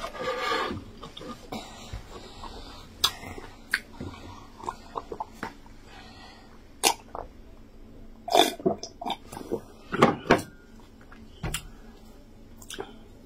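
Close-up mouth sounds of eating yam fufu and egusi soup by hand: lip smacks, chewing and sharp wet clicks, with a sip from a mug. Two louder sounds come about eight and ten seconds in.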